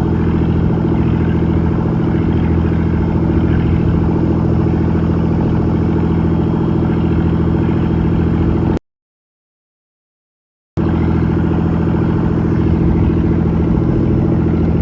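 Fishing boat's engine running at a steady speed, with no change in pitch, broken a little past the middle by about two seconds of total silence.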